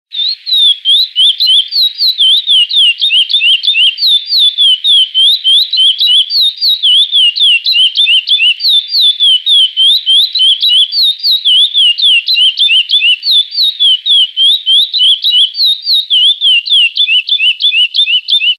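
Curió (lesser seed finch) singing the classic 'praia' song: a loud, unbroken run of clear whistled notes, each sliding up or down, about five a second, starting and stopping abruptly.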